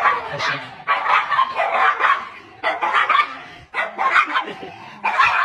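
Small dogs barking repeatedly through a metal gate: sharp, fairly high barks coming about once or twice a second.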